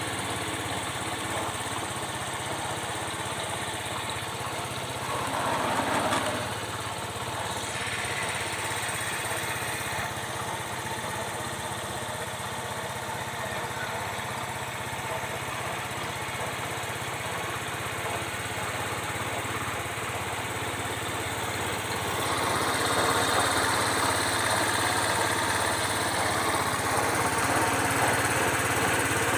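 Honda Super Cub 90's single-cylinder four-stroke engine idling steadily, with a short rise in revs about six seconds in. It runs louder from about two-thirds of the way through.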